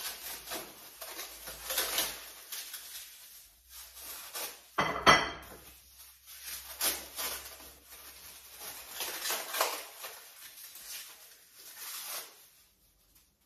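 Kitchen handling noises: scattered rustles, knocks and clinks while a pack of frozen minced meat is handled and unwrapped at the counter. There is one sharp clatter about five seconds in.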